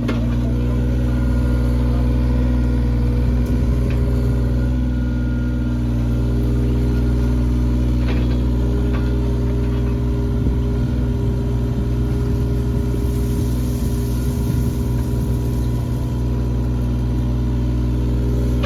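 Excavator's diesel engine running steadily, with a few faint knocks.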